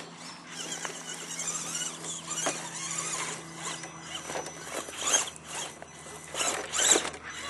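Axial SCX10 scale RC rock crawler working over rocks: its electric motor and geared drivetrain whirring and grinding, with tyres scrabbling on rock. Several louder rasps stand out, the loudest about seven seconds in.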